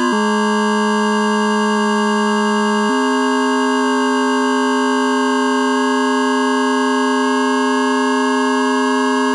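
Electronic music generated in Kyma from sonified viral genomes: a dense chord of held, sine-like tones at a steady level, with single tones stepping to new pitches now and then and the lowest tone stepping up about three seconds in.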